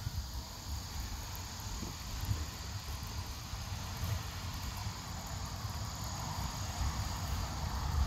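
Insects trilling steadily in the background over a low, gusting wind rumble on the microphone.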